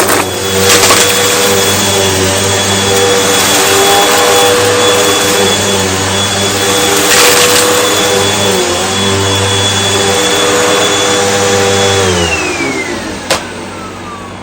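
Hoover Elite Rewind UH71013 bagless upright vacuum cleaner running with a steady motor whine and airflow rush, with a few sharp clicks. About twelve seconds in it is switched off and its pitch falls away as the motor winds down; its bin is packed full and it is starting to lose suction.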